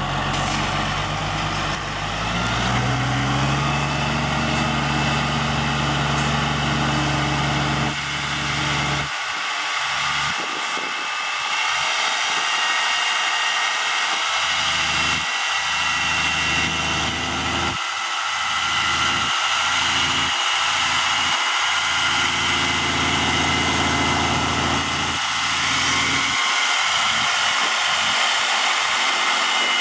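Peterbilt 357 6x6 water truck's diesel engine pulling away, its pitch rising for the first few seconds and then running steadily, under the steady hiss of water jetting from the truck's cannon and spray nozzles. Later the low engine drone drops in and out while the water hiss carries on.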